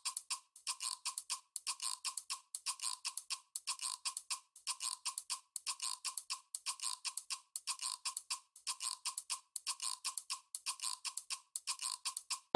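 Fast, even ticking, about four to five ticks a second, each tick carrying a faint ringing tone.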